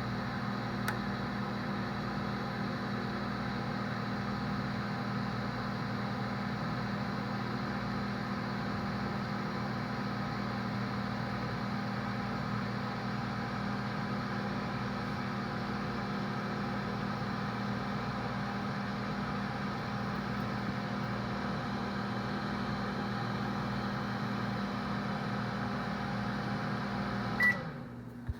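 Microwave oven running with a steady low hum and whir. Near the end it stops with a single short beep and the hum dies away: the heating cycle has finished.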